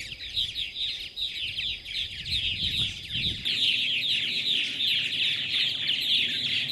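A purple martin colony chattering: many birds giving short, quick chirps that overlap into a continuous busy chorus.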